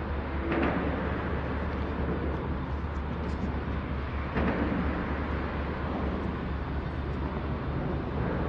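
Steady low engine rumble under outdoor background noise.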